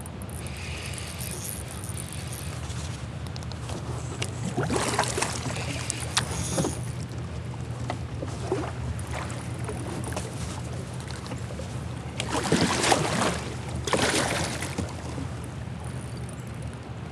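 Kayak paddle strokes splashing in river water, several in two pairs, over a steady low hum.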